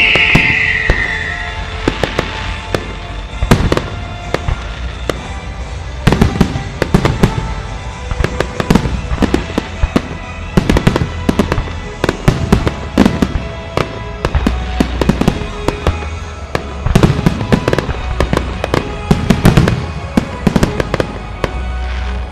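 Fireworks display: a rapid series of aerial shell bursts, sharp bangs coming thick and fast, densest in the second half. A descending whistle fades out in the first second or so.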